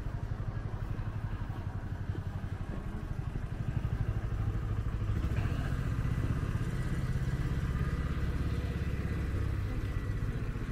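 An engine running steadily with a low, even rumble, getting a little louder about four seconds in.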